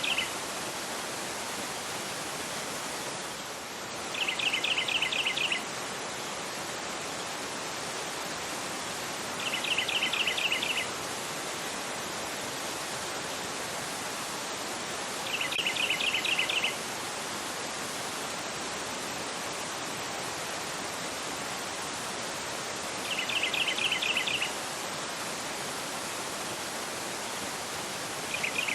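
Fast river rushing over a rocky bed, a steady even rush of water. About every five to seven seconds a bird gives a short phrase of rapid repeated chirps, louder than the water, five times in all.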